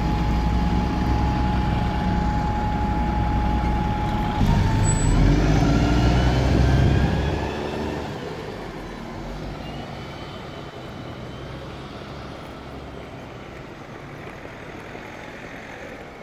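Red double-decker bus engine running close by with a steady whine, then revving with rising pitch as it pulls away; after about seven and a half seconds it fades to a quieter, even hum of distant traffic.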